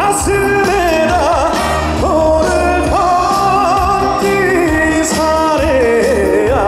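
A male trot singer singing live over a band accompaniment with a steady beat, his voice bending in wide vibrato on held notes.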